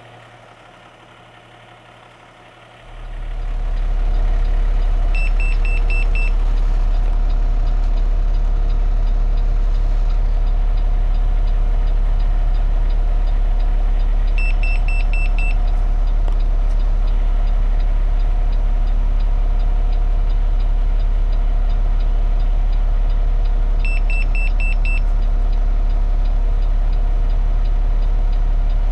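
Refuse truck's engine idling steadily, with a heavy low rumble that comes up sharply about three seconds in and then holds. Three short runs of about five quick high-pitched beeps sound roughly ten seconds apart.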